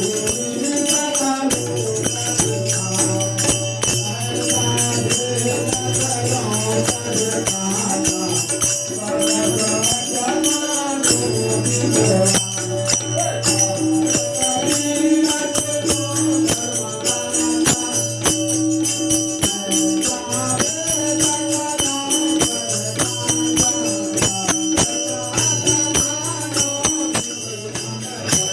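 Devotional aarti singing by a group of voices over a steady low drone, with rhythmic jingling hand percussion.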